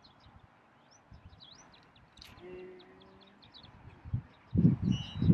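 Small birds chirping and twittering in quick short high notes, with one low, steady cooing note about halfway through. Near the end, a burst of louder low thumping noise.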